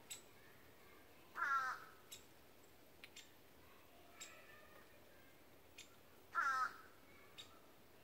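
Two harsh, cawing calls from a corvid, each about half a second long and falling slightly in pitch, spaced about five seconds apart. Faint, sharp little ticks are scattered in between.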